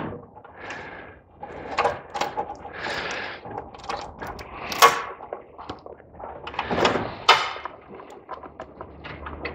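Irregular clicks, knocks and rattles of hands working plastic clips, connectors and panels at the stripped front end of a BMW Z3, with a few sharper knocks, the loudest about five seconds in.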